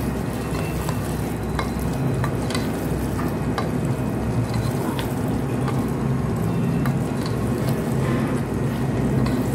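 Potatoes and tomatoes sizzling in a pot as a spatula stirs them, with scattered clicks and scrapes of the spatula against the pot, over a steady low hum.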